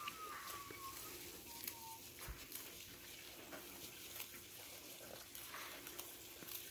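Goat grazing long grass close by: irregular crisp tearing and crunching as it bites off and chews the stems.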